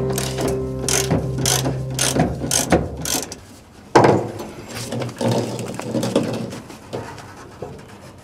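Ratchet wrench clicking in quick repeated strokes as the bolts holding a VW Beetle body to its floor-pan frame are worked loose. A loud scrape and clunk about four seconds in is followed by scattered metallic rattling and scraping as the body shell is lifted off the frame.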